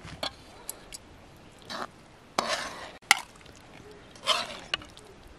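Metal ladle scooping meat stew from a cast-iron pot and tipping it into a steel bowl: a run of wet scrapes and metal clinks, the sharpest clink about three seconds in.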